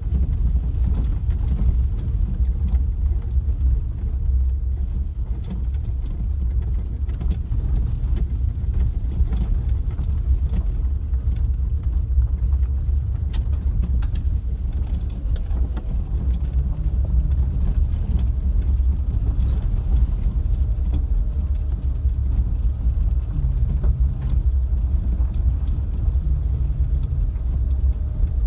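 A vehicle driving slowly along a gravel forest road: a steady low engine and tyre rumble, with scattered small ticks.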